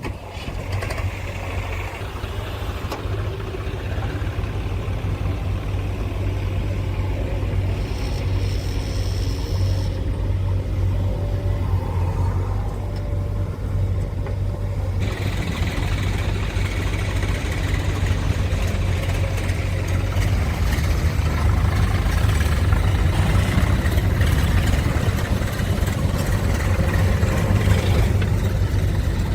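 Heavy diesel engine running steadily, growing gradually louder.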